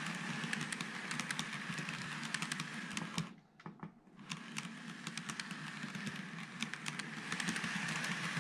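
TOMIX N-gauge JR 103-series model electric train running past on the layout track: a steady motor whir with quick, light clicking of the wheels on the rails. The sound falls away for about a second a little after three seconds in as the train leaves, then rises again as it comes by once more.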